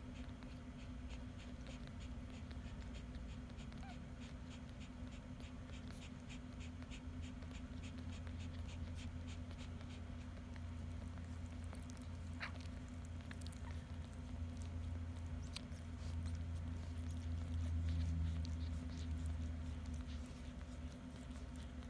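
Newborn Bichon Frisé puppies suckling at their mother's teats: a soft, rapid run of small wet smacking clicks, with one brief high squeak about halfway through. Under it runs a low rumble that grows louder near the end.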